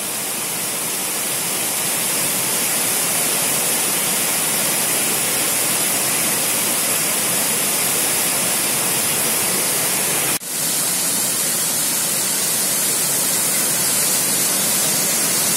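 Steady rushing roar of a large waterfall in full flow, with a brief break about ten seconds in.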